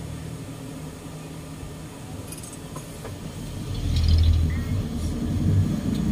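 Low, steady rumble of engine and road noise heard from inside a moving vehicle's cabin, growing louder about two-thirds of the way through.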